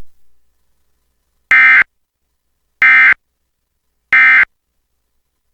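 Emergency Alert System end-of-message (EOM) data tones: three short, identical bursts of digital screech about 1.3 seconds apart, the code that signals the alert is over.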